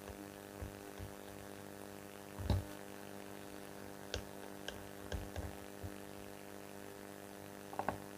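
Steady electrical mains hum with a few small, sharp clicks and taps scattered through it, as of small tools working on a watch case. The loudest click comes about two and a half seconds in, and a quick pair comes near the end.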